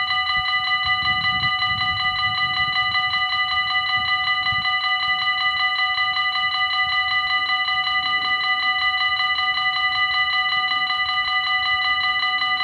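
Electric warning bells of a Dutch automatic level crossing ringing rapidly and without a break, sounding together with the flashing red lights to warn that a train is approaching.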